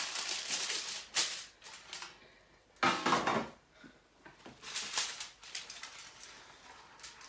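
Aluminium foil crinkling and rustling in several short bursts as it is handled and folded over a tray.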